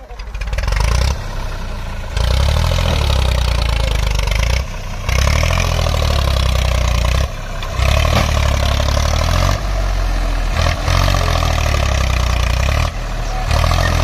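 A Massey Ferguson 240 tractor's diesel engine revved hard under heavy load in repeated surges about two seconds long, with brief dips between them. The tractor is straining to pull a loaded trolley out of mud, and the trolley stays stuck.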